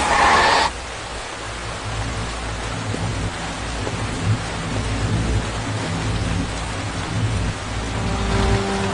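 Heavy rain pouring down, with a low rumble running underneath.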